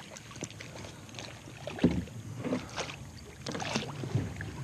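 Water splashing in several irregular bursts, the loudest about two seconds in: a freshly hooked fish thrashing at the surface on the line.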